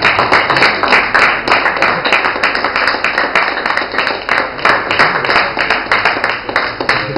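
An audience applauding: many hands clapping in a dense, irregular patter that begins suddenly and dies away near the end.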